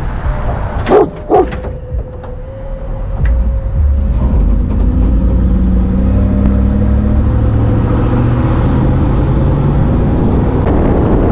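Cane Corso barking twice in quick succession, loud, about a second in. From about four seconds in, a vehicle's engine and road noise rise and run steadily.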